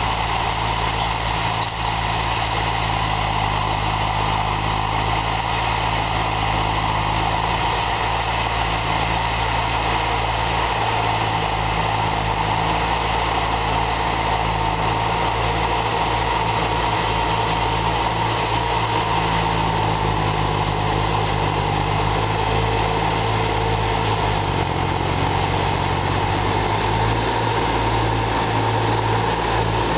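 Diesel engines of Hattat farm tractors running steadily under load as they pull tillage implements through ploughed soil. The engine pitch shifts for a few seconds about three-quarters of the way through.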